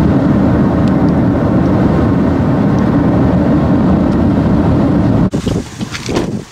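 Steady low rumble of road and engine noise inside a moving vehicle, which cuts off abruptly about five seconds in; a quieter, uneven rush follows.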